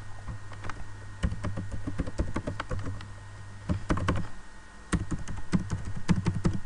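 Typing on a computer keyboard: irregular runs of keystrokes with a short pause between them, as a login password is entered.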